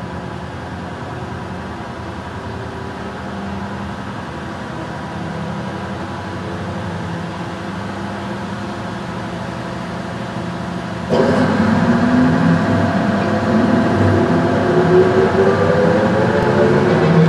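Escher Wyss two-stage pusher centrifuge running with a steady machine hum made of several tones. About eleven seconds in the sound jumps louder and a whine begins climbing steadily in pitch, as the machine speeds up.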